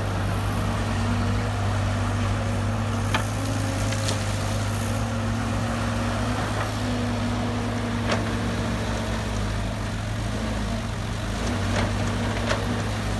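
Heavy construction machine's diesel engine running steadily at a low, even idle, with a handful of short sharp clicks scattered through.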